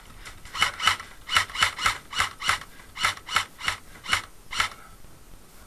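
Airsoft rifle firing about a dozen rapid semi-automatic shots, each a sharp mechanical crack, at an uneven pace of roughly three a second.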